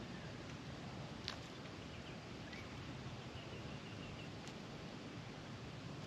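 An Australian magpie foraging in straw mulch: faint rustling and a few sharp ticks as it probes and pecks at the ground, the loudest about a second in. A faint high twitter of a distant bird a little past halfway, over a steady outdoor hiss.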